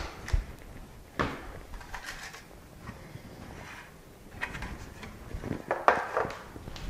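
Clay bricks and black plastic growing trays handled on a tabletop: bricks lifted off and set down and a plastic tray lid lifted away, giving several scattered knocks and clunks.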